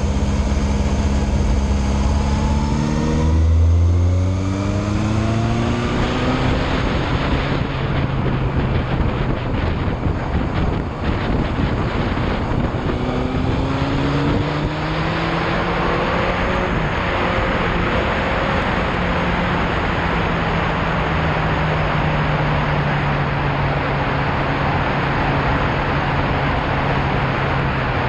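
Motorcycle engine accelerating, its pitch rising about 3 seconds in and again about 13 seconds in, then holding steady at cruising speed under heavy wind noise on the microphone.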